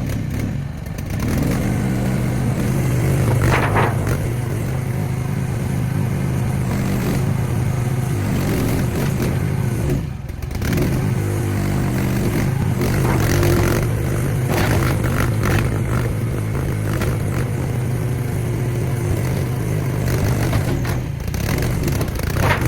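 Mini excavator's engine running steadily, with metal scraping and clattering now and then.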